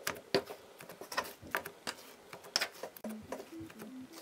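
Sticky homemade slime giving irregular wet clicks and pops as fingers press, fold and pull it. A quiet melody of background music comes in about three seconds in.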